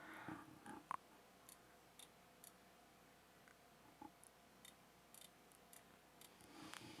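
Near silence, with faint, short clicks scattered about once a second from working the icon editor.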